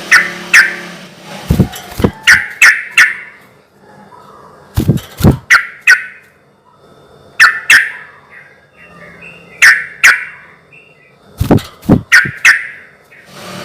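Yellow-vented bulbul (trucukan) singing: short bursts of quick, sharp chattering notes, a cluster every two or three seconds.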